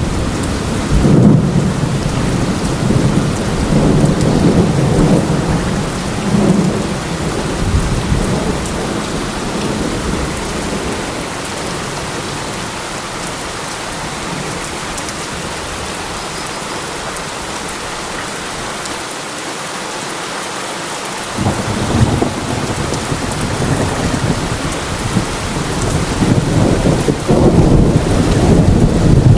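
Rain falling steadily in a forest, with thunder rumbling. A rumble dies away over the first several seconds, leaving rain alone through the middle. A new crack of thunder about two-thirds of the way in rolls on and grows louder toward the end.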